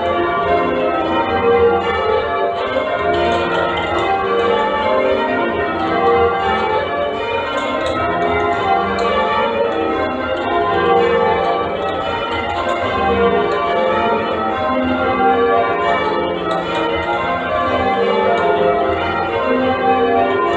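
Change ringing on a middle-weight ring of eight church bells cast by Mears & Stainbank: a continuous run of overlapping bell strokes, each bell ringing on into the next.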